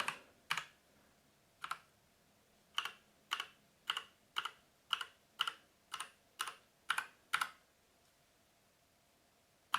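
Keys of a full-size mechanical keyboard with Kailh brown switches being pressed one at a time: two spaced presses, then a run of about ten taps at roughly two a second, then they stop. The same keys are being tapped over and over to cycle their backlight colour.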